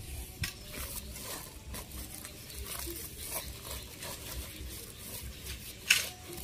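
Hands rustling a woven plastic sack and pressing soil around a potted plant's stem: scattered crinkles and soft scrapes, with one sharper rustle near the end.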